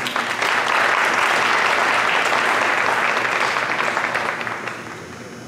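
A small seated audience applauding: steady clapping that starts at once, holds, and dies away near the end.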